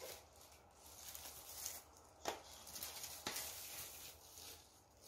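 Rustling of a soft white plastic wrapping being pulled off a small plastic box, with two sharp clicks about a second apart near the middle.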